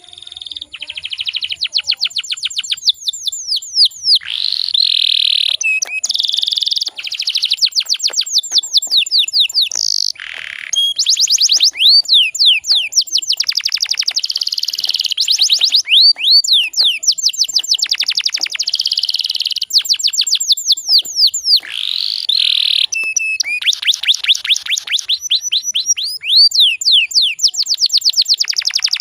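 Domestic canary singing: fast trills of quick sweeping notes, phrase after phrase with brief pauses between.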